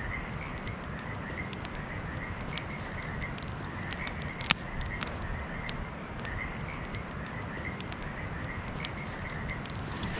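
Campfire crackling with irregular sharp pops, one louder than the rest about halfway through, while frogs croak in short repeated calls.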